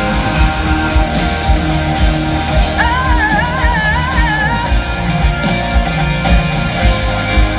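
Live rock band playing loudly: a steady drum beat under guitar, with a high wavering melody line for a couple of seconds around the middle.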